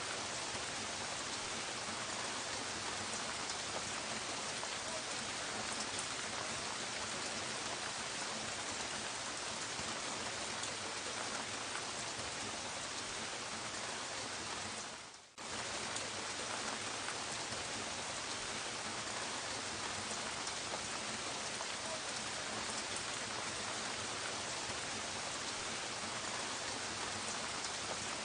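Steady soft rain falling, with a fine patter of drops. About halfway through the sound fades down for a moment and then cuts straight back in.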